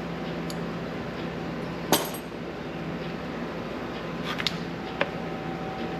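Steel butt-weld panel clamps clinking as they are worked out of freshly tack-welded sheet metal. There is one sharp metallic clink about two seconds in and a few lighter clicks later, over a steady low hum.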